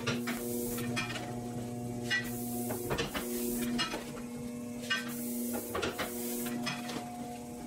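Century-old platen letterpress running, its platen and rollers clacking shut about once a second as envelopes are fed in and taken off by hand, with paper sliding and rustling between strokes.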